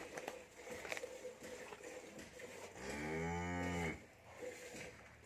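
A cow moos once, a single call about a second long, about three seconds in.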